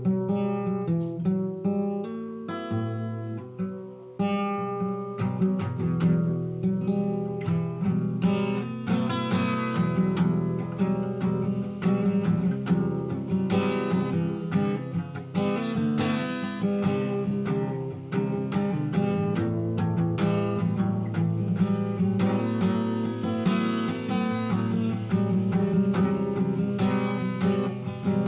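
Acoustic guitar music, picked and strummed, with no singing. It thins out and softens around three to four seconds in, then comes back with fuller strumming.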